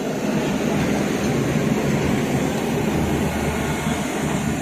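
Passenger coaches of a departing train rolling past on the track: a steady, dense rumble of wheels on rails as the train pulls out of the station.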